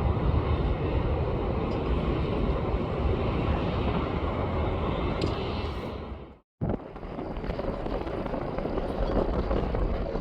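Steady rumble of jet airliner engines, cut off abruptly for a moment just past halfway and then back.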